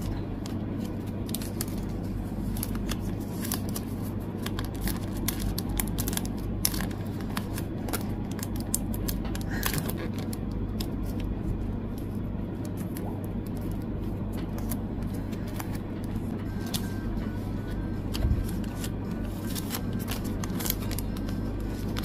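Thin clear plastic photocard sleeves crinkling and crackling as cards are handled and slid into them, many small irregular crackles over a steady low background hum.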